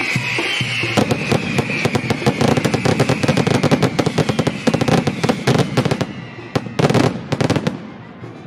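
A string of firecrackers going off in rapid cracks for about five seconds, followed by a few louder bangs and then dying away near the end. A high whistle falls in pitch and fades at the start.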